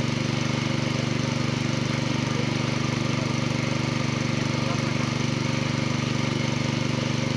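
Small engine running a water pump, running steadily with a fast, even pulse.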